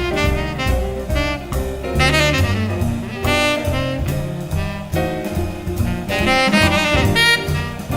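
Instrumental jazz music led by a saxophone playing a melody, over bass and drum kit.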